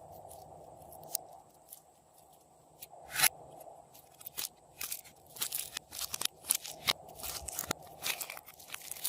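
Slime being squished and kneaded by hand, giving sharp crackling clicks and pops. They come sparsely at first, with one loud pop about three seconds in, then in quick clusters through the second half.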